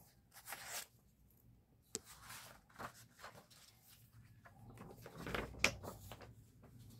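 Art book pages being turned and handled: several soft paper swishes and rustles, with a crisp paper snap about five and a half seconds in.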